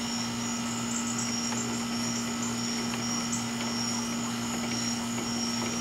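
Steady low electrical hum, with high, thin cricket trilling that breaks on and off above it.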